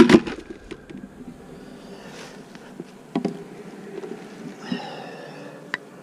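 Honeybees buzzing around an opened hive, a steady hum, with a loud clatter of knocks right at the start and a few single knocks later as the hive is worked.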